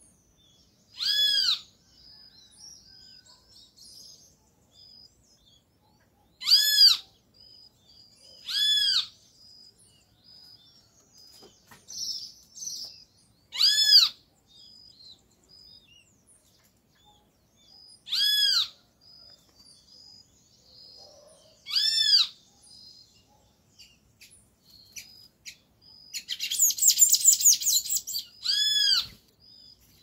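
Great kiskadee calling: single slurred, arched notes repeated every few seconds, about seven in all. Near the end comes a louder rapid chattering burst, and a thin series of short high notes runs in the background.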